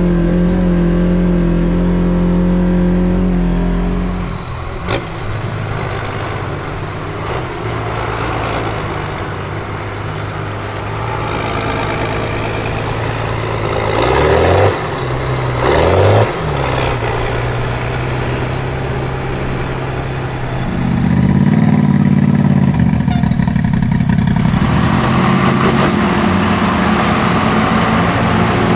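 Off-road vehicle engines running, with two quick revs about halfway through and a louder engine note coming in near the end.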